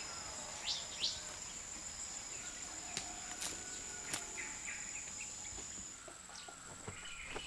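Tropical forest ambience: a steady high-pitched insect drone, with a few short bird calls and scattered sharp clicks.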